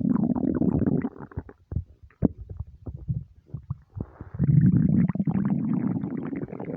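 Hungry stomach rumbling: a gurgling rumble for about the first second, then a scatter of short gurgles, then a second long rumble through most of the second half.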